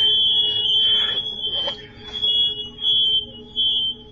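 Smoke alarm sounding: a high, shrill tone that pulses louder and softer over and over.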